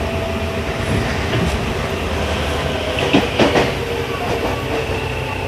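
Running noise of a Tokyu 1000 series electric train car: a steady rumble of wheels on rail with the hum of its GTO-VVVF traction equipment. About three seconds in there is a quick cluster of clicks over rail joints.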